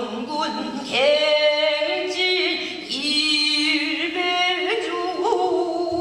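A female pansori singer singing alone in long held notes that waver and slide between pitches, with no drum strokes.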